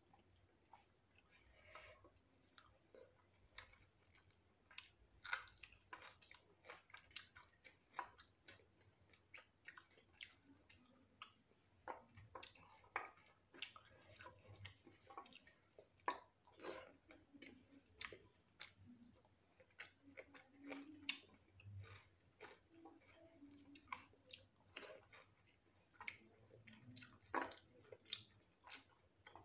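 A person chewing a mouthful of spicy food: quiet, irregular mouth clicks and smacks.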